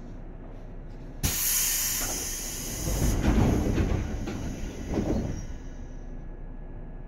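Seibu 2000 series electric train standing quiet, then a sudden loud hiss of compressed air from its air system about a second in. The hiss fades away over the next few seconds, with low rumbling in the middle.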